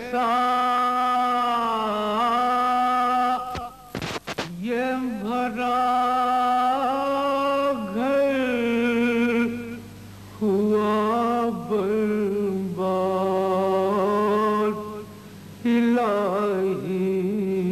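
A man's solo voice reciting a noha, an Urdu mourning lament, unaccompanied, in long held, ornamented phrases with three short breaks for breath.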